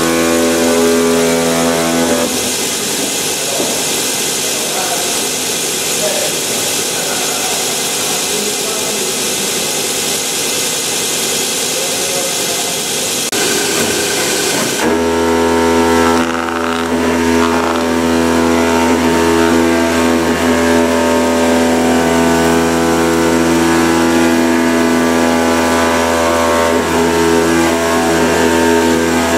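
Kimla CNC cutting head running, its oscillating knife buzzing as it cuts gasket sheet over a steady machine hum. The pitch of the hum shifts about two seconds in and again about fifteen seconds in.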